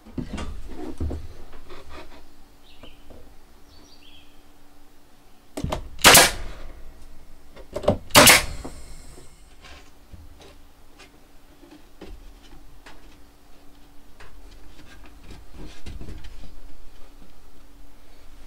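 Knocks, taps and clatter of wooden cupboard parts being handled and fitted, with two loud sharp bangs about two seconds apart near the middle.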